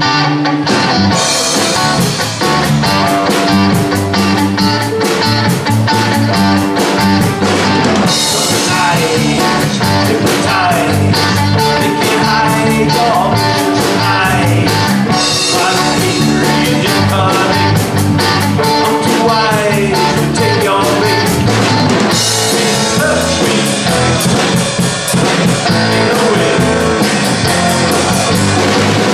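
Live rock band playing: two electric guitars, electric bass and a drum kit, with the drums and cymbals coming in about a second in over the guitars.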